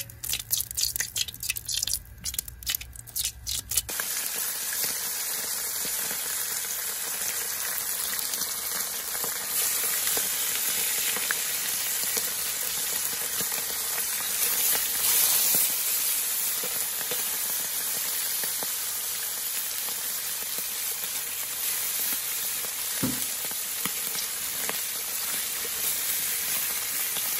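Salmon pieces frying in hot oil in a nonstick frying pan: a few seconds of sharp crackles and pops, then a steady sizzle from about four seconds in.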